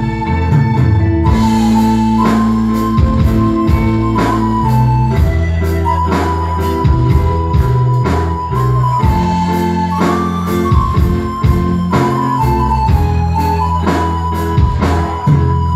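Live band playing an instrumental passage through a loud PA: a sustained lead melody that steps in pitch over steady bass notes and a regular drum beat.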